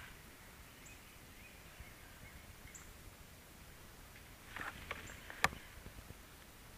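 Quiet outdoor ambience with faint, brief high bird chirps now and then. A little past the middle comes a short run of small clicks ending in one sharp click, the loudest sound here.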